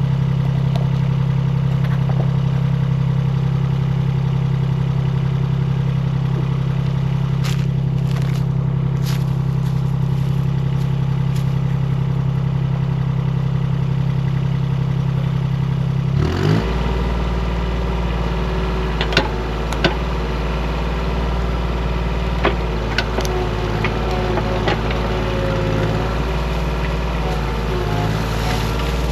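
Mini excavator's diesel engine running steadily. About 16 seconds in, its note drops to a lower pitch, and a few sharp knocks follow.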